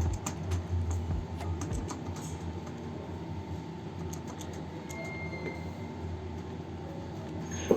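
Steady low machine hum with scattered light clicks and taps, and one sharper knock near the end.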